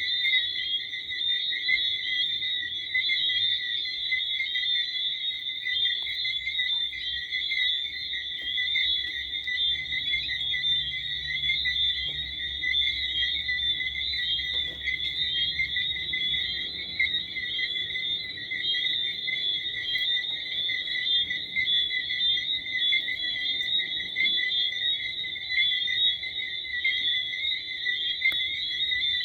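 A chorus of tree frogs calling continuously, a dense high-pitched sound held at two steady pitches.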